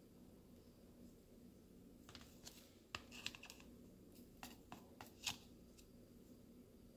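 Faint clicks and taps of a kitchen knife cutting a wedge from a round of fresh queso fresco on a plate, a scattered run of small ticks beginning about two seconds in and lasting about three seconds.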